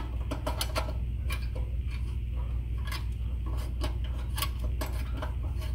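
Phillips screwdriver loosening the throttle stop screw on a Predator 212cc engine's throttle linkage: irregular small metal clicks and scrapes, several a second, over a steady low hum.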